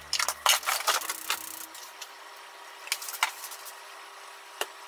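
Kitchen knife and tofu blocks handled on a mango-wood cutting board: a quick run of knocks and taps in the first second and a half, a few lighter taps about three seconds in, and a single sharp tap near the end.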